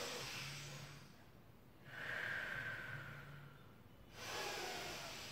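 A woman taking slow, deep belly breaths, each a long airy rush of air; three breaths, a new one starting about every two seconds.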